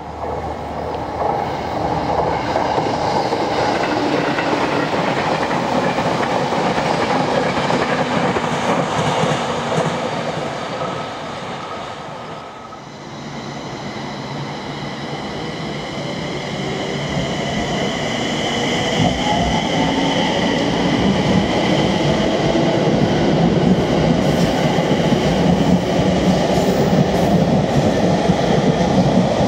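Electric commuter train running, its wheels clattering over the rail joints. About halfway through, a JR East 701/E721-series train at a station platform takes over: its motor whine rises in pitch as it picks up speed, and the sound grows louder toward the end.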